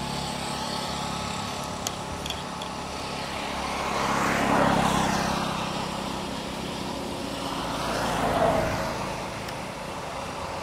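Motor traffic: a steady low engine hum, with vehicles passing and swelling louder twice, about four and a half and eight and a half seconds in.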